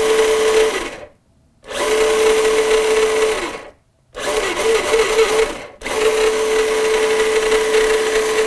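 Vanquish VS4-10 RC rock crawler's electric motor and geared drivetrain running in throttle bursts: a steady whine with gear noise that stops briefly about one, four and six seconds in. The whine wavers in pitch in the third burst as the throttle is eased on and off.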